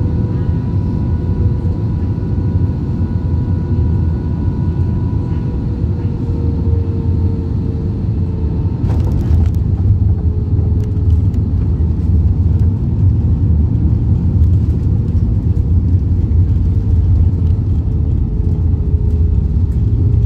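Cabin noise of an Airbus A320-family jet airliner landing: a steady rumble of jet engines and airflow with a whine that slowly falls in pitch, a sharp bump about nine seconds in as the wheels touch down, then a louder rumble as it rolls down the runway with the spoilers up.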